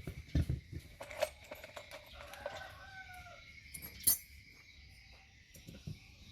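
Scattered clicks and knocks of tools on the metal parts of a car alternator being taken apart for a bearing change, the sharpest about four seconds in. A rooster crows once in the background a little after two seconds in, its call falling in pitch.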